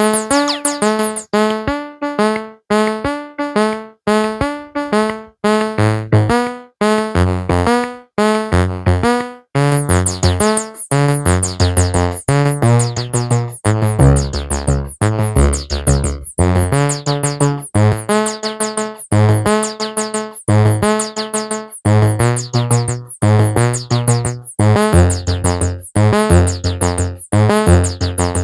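Synthesizer music: short, plucked-sounding keyboard notes in a repeating pattern, with a bass line coming in about a third of the way through and the notes growing denser.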